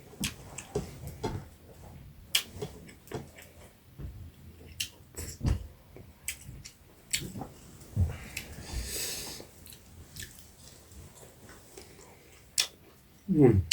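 Close-miked eating sounds: chewing of small crisp-fried rohu fish with rice and soup, with scattered wet clicks and soft thuds. A brief hiss about nine seconds in and a short low hum falling in pitch near the end.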